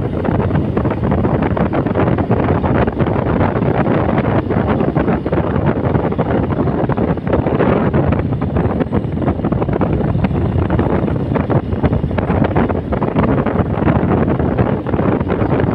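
Steady wind rush buffeting the microphone of a moving motorcycle, with vehicle and road noise mixed in.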